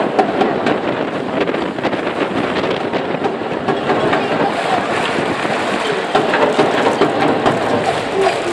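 Baseball stadium crowd noise with many sharp claps and clicks, under strong wind buffeting the microphone.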